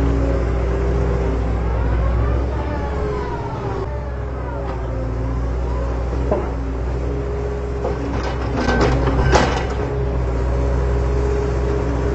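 Background music with sustained notes and gliding voice-like lines over a steady low hum. A cluster of sharp crunching clicks comes at about 8 to 9.5 seconds in.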